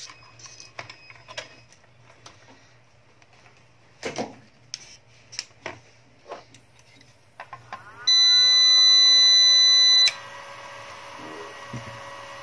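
Clicks and knocks of handling and clip attachment, then the home UPS/inverter switches on about seven and a half seconds in. An electrical whine rises and settles into a steady hum, and a loud, steady beep from its buzzer lasts about two seconds.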